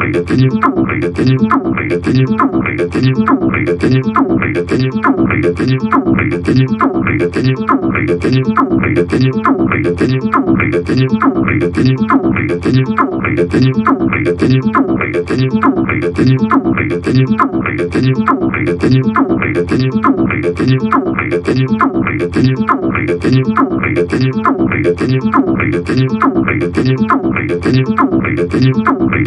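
Synthesizer in the style of a Roland TB-303, playing a looping pattern of short three-note chords at a steady tempo; the bright top of each note falls away quickly after it starts.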